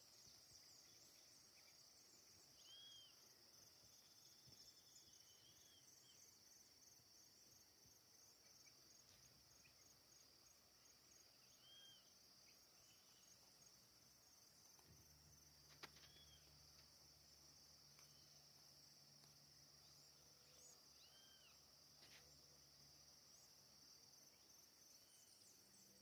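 Faint outdoor ambience of insects chirring in a steady, rapidly pulsing high trill, with a few short bird chirps now and then.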